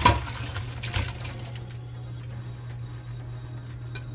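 Cooking water poured from an aluminium pressure cooker into a colander in the sink: splashing and two clanks of the pot in the first second or so, then quieter draining over a steady low hum.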